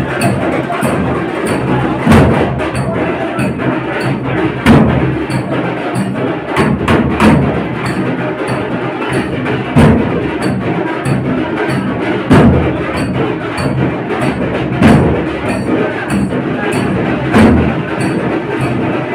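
Devotional bhajan music carried by percussion: quick light clicks, about two to three a second, over heavier drum strokes that fall about every two and a half seconds.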